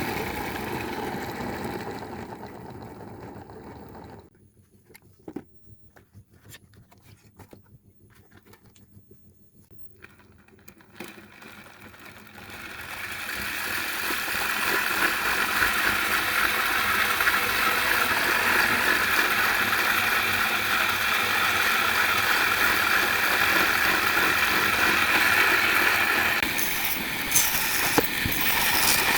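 A 775 DC motor running on a homemade tool. It dies away about four seconds in, a few light clicks follow during a quiet stretch, and then it starts up again about twelve seconds in and runs steadily.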